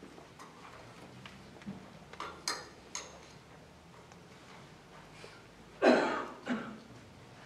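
A few light clinks of a small vessel against a ceramic water jar, then two coughs near the end.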